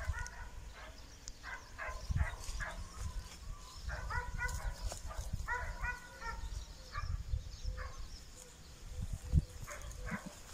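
Short animal calls repeated in quick bunches, the longest run about four to six seconds in, over a low rumble. A sharp low thump comes near the end and is the loudest sound.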